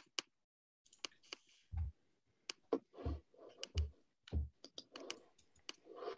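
Irregular clicking and tapping of a computer keyboard and mouse, with a few duller thumps in the middle.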